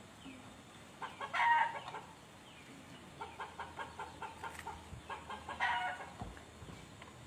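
Chickens clucking: two louder calls, one about a second and a half in and one about six seconds in, with a run of short quick clucks, about four a second, between them.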